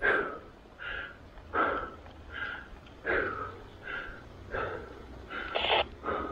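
A person breathing hard in a steady rhythm, loud and softer breaths alternating a little more than once a second: panting from the effort of pedalling a bicycle uphill.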